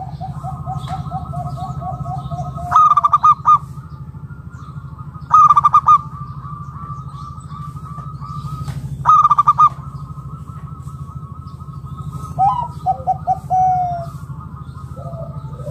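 Zebra dove (perkutut) cooing in rapid staccato phrases: three loud bursts about 3, 5.5 and 9 seconds in, and softer phrases at the start and near the end, over a steady low hum.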